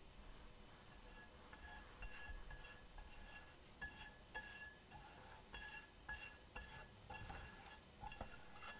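Quiet, irregular clinks and taps, each ringing briefly, as a silicone pastry brush spreads olive oil over a ceramic-coated frying pan.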